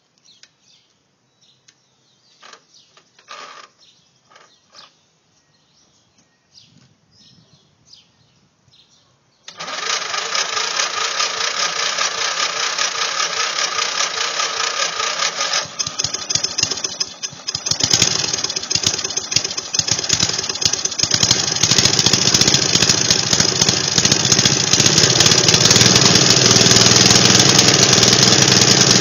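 An old Briggs & Stratton four-stroke riding-mower engine, running on propane fed into its air intake, starts up suddenly about a third of the way in. It falters briefly around the middle, then runs steadily and louder.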